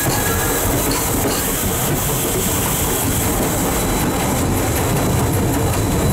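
Train moving along the track close to Norfolk & Western steam locomotive #475: a steady rumble of wheels on rail with light clicking over the rail joints.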